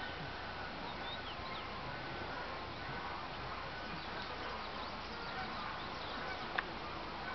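Open-air ambience: a steady hiss with short high chirps of small birds now and then, and one sharp click about six and a half seconds in.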